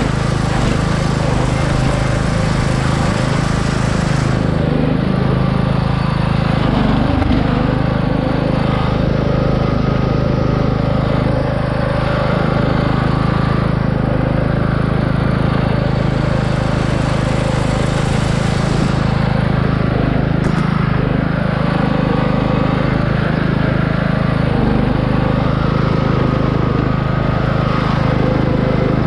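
Craftsman riding lawn mower's 17.5-horsepower engine running steadily at an even speed.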